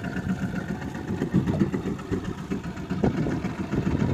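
Small fishing boat's engine running, a low rumble.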